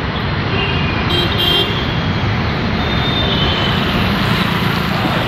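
Steady road traffic noise on a rain-wet street, with a short vehicle horn toot about a second in.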